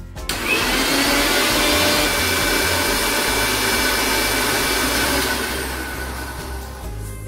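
Bajaj mixer grinder motor spinning its blades in a steel jar of watermelon pieces, blending them to juice. It spins up about a quarter second in, runs as a loud steady whirr with a high whine, then eases off and gets quieter near the end.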